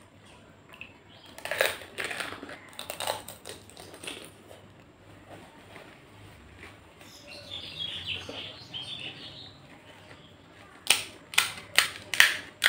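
Crisp fuchka (pani puri) shell crunching and wet chewing of a mouthful. Near the end come four sharp cracks as fingers break open another crisp puri shell.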